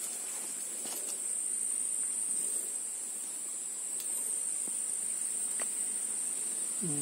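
Insects droning in one steady high-pitched whine, with a few faint ticks.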